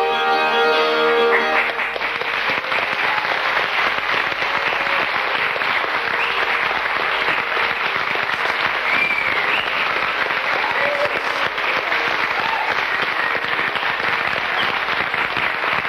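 Closing music holds a chord and stops about a second and a half in. A large audience then applauds steadily, with a few brief cries rising above the clapping.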